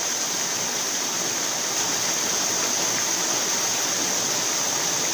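Stream water rushing steadily, an even hiss with no breaks.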